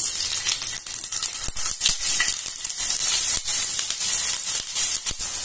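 Paneer cubes frying in hot oil in a nonstick pan: a loud crackling sizzle that starts suddenly as the cubes go in and keeps up throughout.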